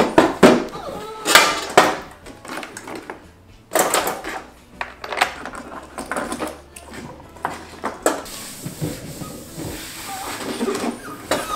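Paint tubes clattering and knocking as they are gathered up and dropped into a plastic bin, then a cloth rubbing across a wooden desktop from about eight seconds in.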